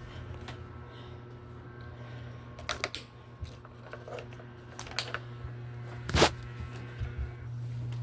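Sharp clicks of ceiling fan switches being flipped, a few in quick succession around three seconds in and the loudest about six seconds in, over a steady low hum from the fans.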